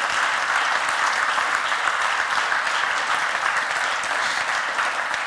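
Audience applauding steadily: many hands clapping together in a dense, even wash.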